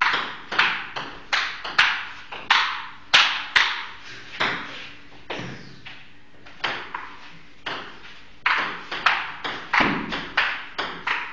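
Table tennis rally: the ball clicking sharply off paddles and table about twice a second, with a short break about five seconds in.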